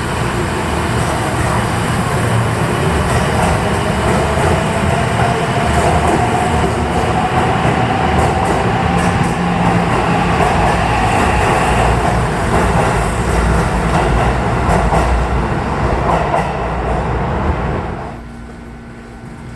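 Electric commuter train pulling out of an underground station platform: wheels running on the rails under a motor whine that rises slowly in pitch as it gathers speed. The noise falls away suddenly near the end.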